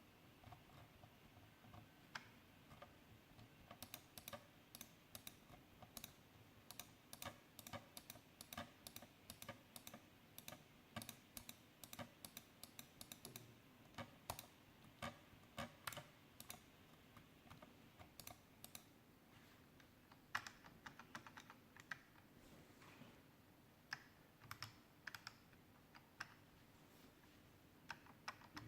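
Logitech G502 gaming mouse clicked and rattled in quick runs of faint, sharp clicks: the right mouse button clatters because it sits loose, and the scroll wheel is loose too.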